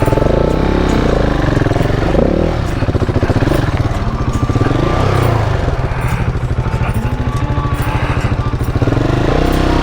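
KTM 690's single-cylinder motorcycle engine working through rough off-road ground, its revs rising and falling again and again.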